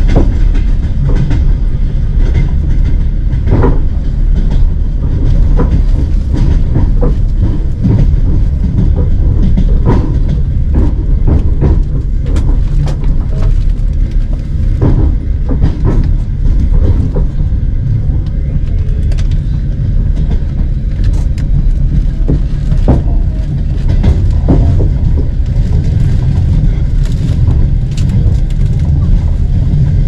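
Passenger train running: a steady low rumble of the carriage with irregular clacks and knocks from the wheels and running gear on the track.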